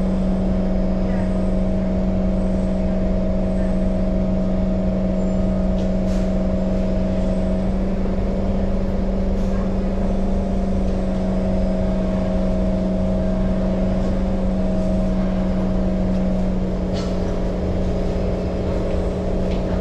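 Singapore MRT train running, heard from inside the passenger car: a steady hum and constant low rumble, with a higher tone that drops away and shifts partway through.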